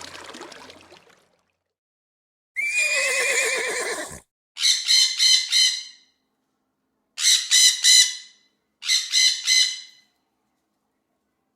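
A single horse whinny, wavering for about a second and a half. It is followed by three bursts of monkey screams, each a quick run of about four shrill calls.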